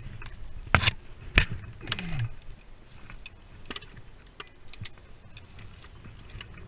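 Metal climbing hardware (carabiners and rope devices on a harness and gear bag) clacking and jingling as it is handled. Two sharp, loud clacks come about a second in, followed by a brief falling tone, then lighter scattered clinks.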